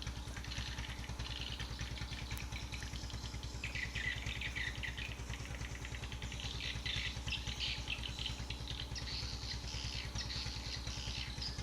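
A small engine running steadily with an even low pulse, while birds chirp in short bursts over it.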